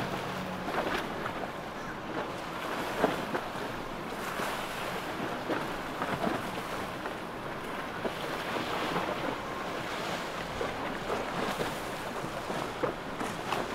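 Wind buffeting the microphone over splashing water and boat wakes, with passing boat engines running underneath; no single sound stands out beyond a few small splashes or knocks.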